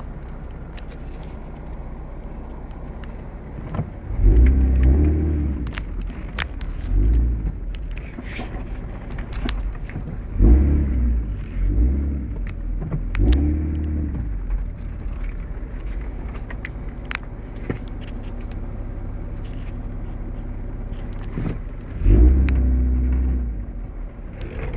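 A 4x4's engine running low and steady, rising in short bursts of throttle five times, with scattered knocks and rattles over it.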